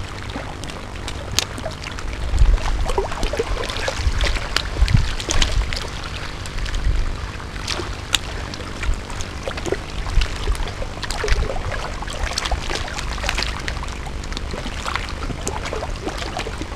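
Wind rumbling on the microphone in gusts, with scattered sharp clicks and rustles from handling the spinning rod and reel.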